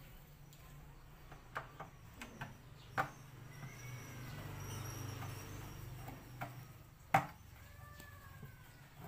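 Light plastic clicks and knocks as a blue PVC threaded adapter is handled and pushed into a hole in the wall of a plastic drum. The two sharpest knocks come about three and seven seconds in, over a low steady hum.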